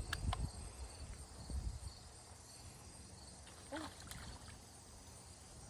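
Quiet outdoor ambience: a faint, steady insect trill, low rumble and a few light clicks.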